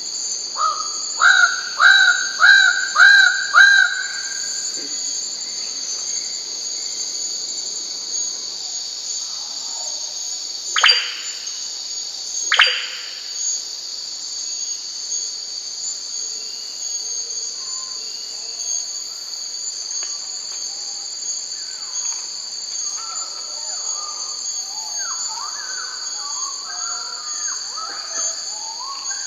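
Bird-of-paradise calling: a quick run of six loud, evenly repeated notes in the first four seconds, then two loud calls sweeping sharply downward about a second and a half apart, over a steady high insect drone. Softer chattering bird calls come in near the end.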